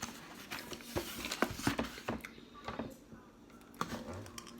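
Crab shells cracking and snapping in short, sharp clicks as they are broken open and picked apart while eating, several times over.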